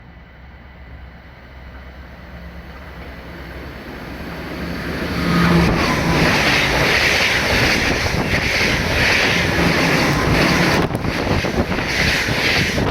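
A ten-car NS ICMm electric intercity train approaching from behind and passing at full line speed: the noise builds over the first five seconds into a loud, steady rush of wheels on rail that surges about once a second.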